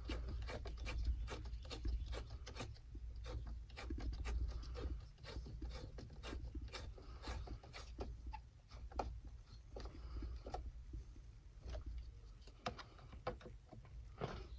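Screwdriver turning hose clamps snug: a run of small, irregular clicks and ticks over a faint low rumble.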